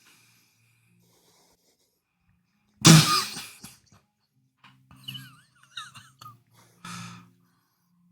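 A single loud slap or hit landing about three seconds in, dying away within a second, followed by faint short scuffs and brief squeaky sounds.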